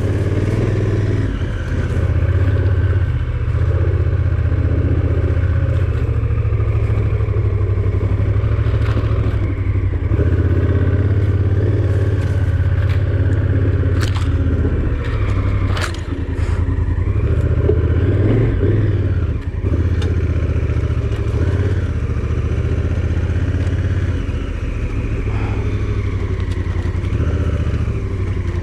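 A vehicle engine running steadily while driving a rough dirt road, with scattered clatter and a few sharp knocks from the rough surface, the loudest around the middle.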